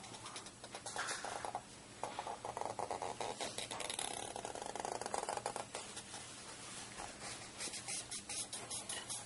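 Felt-tip marker rubbing and scratching across paper as lines are inked, a rapid run of short strokes that is loudest between about two and six seconds in.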